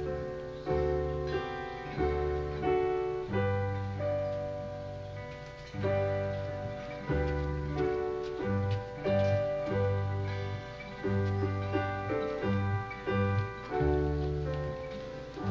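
Piano playing slow sustained chords, a low bass note struck at the start of each chord and fading away.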